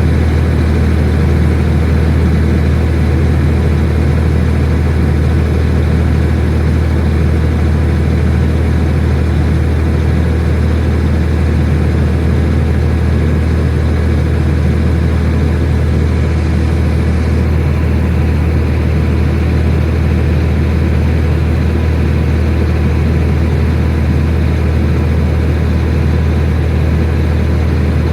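Tractor engine running steadily at a constant speed, with a strong low hum.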